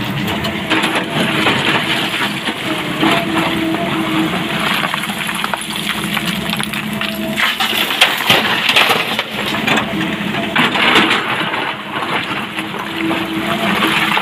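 A SANY hydraulic excavator's diesel engine runs steadily under load. Over it, broken rock clatters and crashes into a steel dump-truck body in several bursts, about a second in, around the eighth second and again a few seconds later. Near the end the bucket scrapes into the rock pile.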